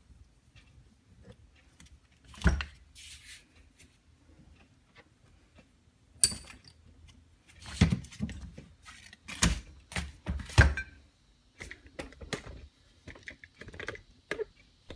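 Cast-iron bench vise being handled and taken apart: scattered clunks and knocks of metal parts, with a sharp ringing metal clink about six seconds in and a run of louder knocks between about eight and eleven seconds.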